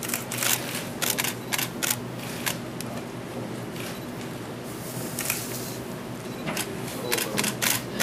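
Camera shutters clicking in quick bursts of several shots at a time, with a steady low hum underneath.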